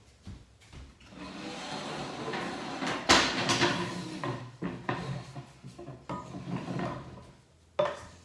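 Rustling and handling noise of objects being moved about, with a sharp knock about three seconds in and a short click near the end.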